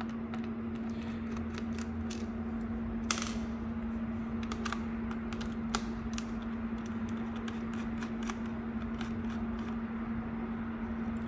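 Torx screwdriver turning out the small screws of a TI-92 Plus calculator's plastic back cover: scattered light clicks and ticks, one a little louder about three seconds in, over a steady low hum.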